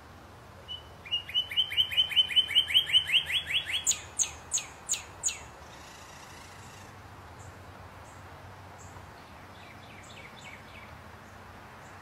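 A songbird singing: a fast run of about a dozen even, repeated notes, about four a second and growing louder, then four slower, higher notes. A fainter burst of song comes near the end.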